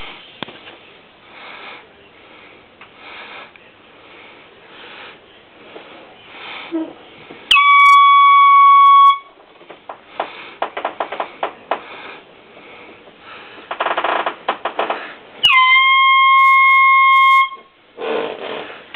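Air horn blown twice, each a loud, steady, high-pitched blast of about two seconds, the second starting about six seconds after the first ends. Soft rustling and clicks come before and between the blasts.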